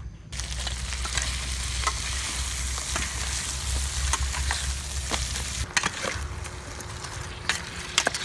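Crab curry sizzling and bubbling in a large stainless steel pot as a metal ladle stirs it, with occasional clinks of the ladle against the pot.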